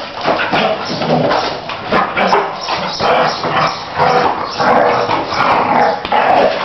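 Six-month-old Belgian Malinois puppy barking over and over in quick succession, worked up by a handler agitating it during its first defense (protection) training.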